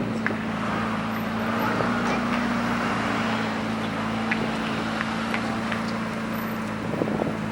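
A car engine idling steadily, holding an even pitch without revving.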